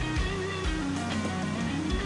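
Background music: an electric guitar track with bass and a steady beat.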